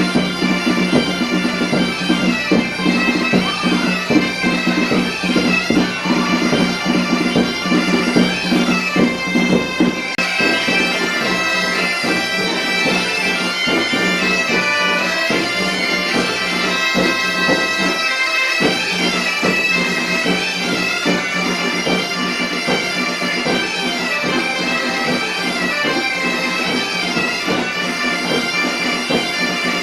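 Galician bagpipes (gaita) playing a tune over a steady low drone, with drum strokes during roughly the first ten seconds.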